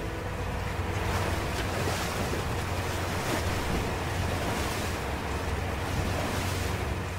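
Wind buffeting the microphone over open sea, with the wash of sea water and a steady low rumble underneath.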